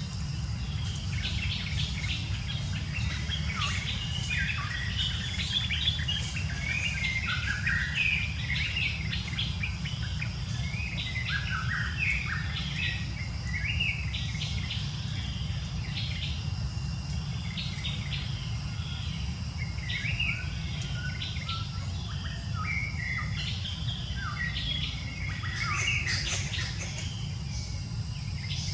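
Many birds chirping and calling in short, quick notes over a faint steady high insect tone and a steady low rumble.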